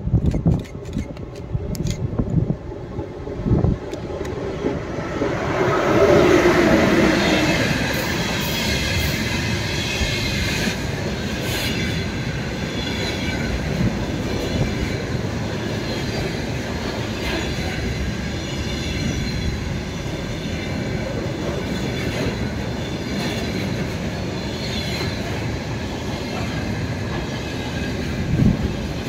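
Freight train passing close by, loudest about six seconds in. Its wagons then roll past with a steady rumble and the wheels clicking over the rail joints.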